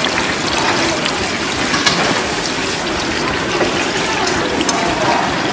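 Hot oil sizzling steadily in a large wok as battered vegetable fritters (twigim) deep-fry, with scattered small crackles and pops through the hiss.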